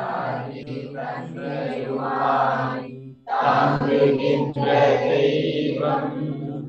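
A group of voices chanting a Tamil devotional verse together, in two phrases with a short break about three seconds in.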